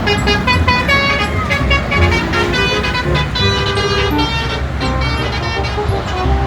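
Multi-tone 'telolet' bus horn tooting a run of short musical notes over the rumble of a vehicle engine.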